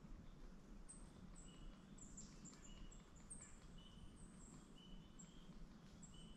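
Near silence, with faint, high-pitched bird chirps scattered through it: many short, thin notes and a few slightly lower, held notes.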